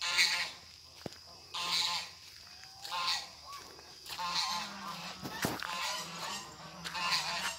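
Geese honking: loud, harsh honks repeated about every one and a half seconds, with a brief sharp click a little past halfway.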